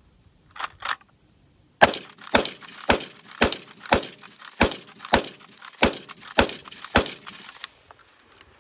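Uberti 1873 Winchester lever-action rifle fired rapidly with .357 Magnum: ten shots at about two a second, the lever cycled between each. Two light clicks come just before the first shot.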